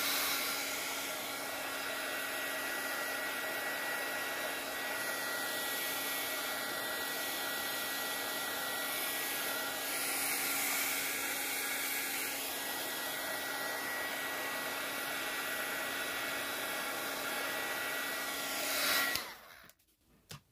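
Handheld heat gun running steadily: an even blowing hiss with a steady hum, switched off near the end. It is heating freshly poured epoxy resin to pop surface bubbles.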